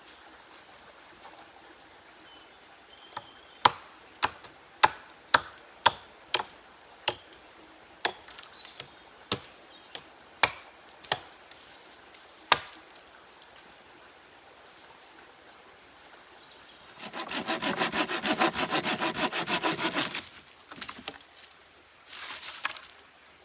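Wood being worked by hand: a run of sharp knocks about half a second apart, then about three seconds of sawing through wood and a short second burst of sawing near the end.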